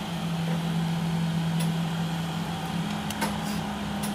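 A steady low mechanical hum, its tone shifting slightly higher about two-thirds of the way in, with a few faint clicks.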